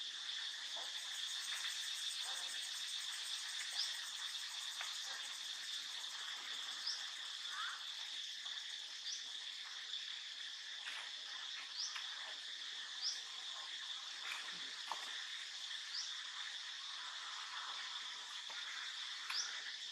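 Steady insect chorus, a continuous high-pitched drone, with a short rising chirp repeated every two to three seconds over it.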